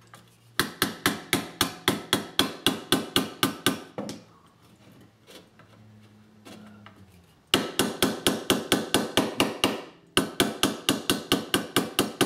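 Claw hammer tapping lightly and quickly on a pressed-tin toy car body to knock out a dent. The taps come at about four or five a second in runs, with a pause of a few seconds in the middle and a short break near the end.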